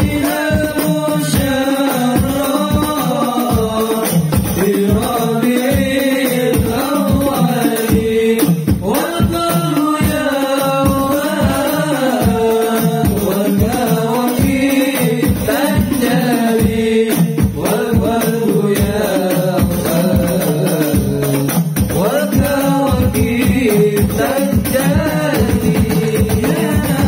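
A male voice singing an Arabic sholawat (Islamic devotional song) in long, gliding melodic phrases through a microphone and PA, over a steady drum beat of about two strokes a second.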